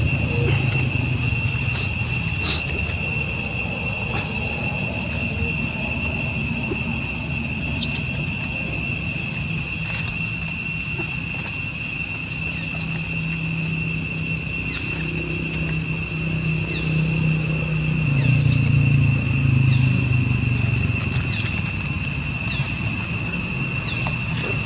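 Insects droning steadily at a high, unbroken pitch, with a low rumble underneath that swells in the second half.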